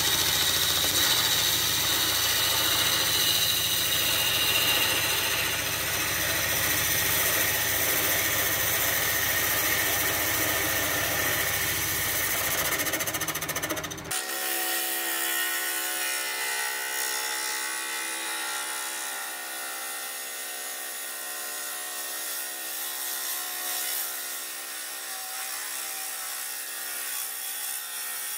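Wood lathe running while a turning tool cuts a spinning monkey puzzle log, a steady rough scraping of wood shavings over the machine's hum. About halfway through the sound changes abruptly: the low hum drops out and a steadier whine with a lighter scrape carries on.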